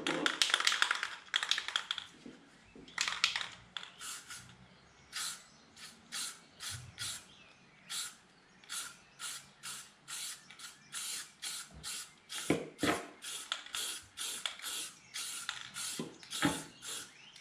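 Aerosol spray-paint can, rattled fast for the first couple of seconds, its mixing ball clattering inside, then sprayed in short puffs, about two a second.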